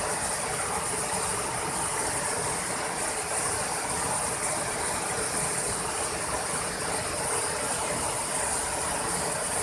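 Steady rush of a wide waterfall, water cascading over rock ledges into a pool.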